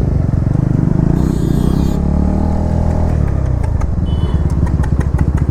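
Motorcycle engine running as the bike rides off, the engine note rising and falling with the throttle.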